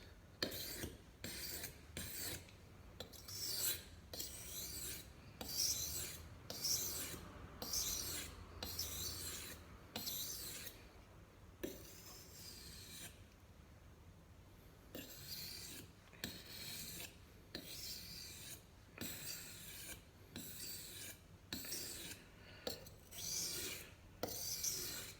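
A small folding knife blade, a Civivi Wyvern, being stroked back and forth across a wet composite whetstone: a steady run of short rasping strokes, about two a second, with a pause of a few seconds about halfway through.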